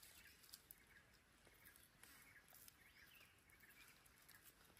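Near silence: faint outdoor ambience with a few faint bird chirps and light ticks.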